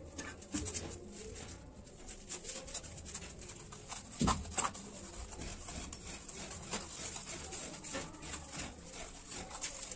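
Steel trowel scraping and raking through a bed of sand-cement mortar on a concrete slab: a run of short rasping strokes, with a couple of louder scrapes about four seconds in.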